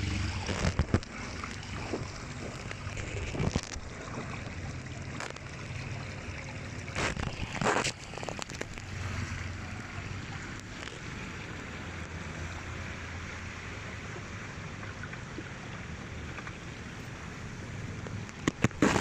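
Floodwater from a road pouring over a concrete edge into a roadside drain, with a steady rushing and gurgling flow. A few brief knocks break in, about a second in, near three and a half seconds and around seven to eight seconds.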